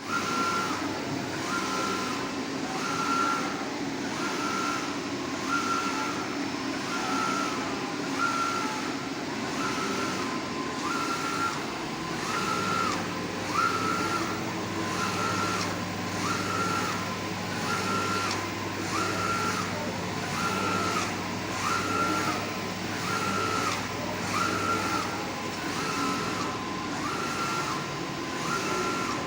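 An electronic beep repeating a little faster than once a second, each beep stepping up in pitch, over a steady mechanical running noise; a low steady hum joins about twelve seconds in.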